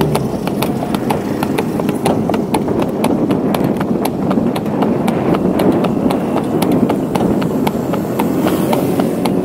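Horse's hooves clip-clopping in a steady, even rhythm on a paved road as it pulls a carriage, over a continuous rumble of the carriage wheels rolling on the road.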